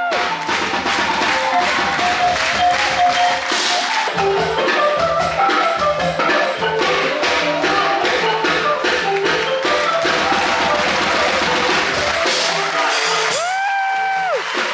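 Live circus band music: quick melodic notes on tuned percussion over steady drums and percussion, with a long held note that slides up and back down near the end.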